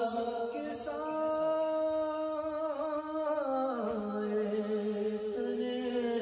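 A man's voice singing an unaccompanied naat, drawing out long, held notes that step down in pitch about four seconds in.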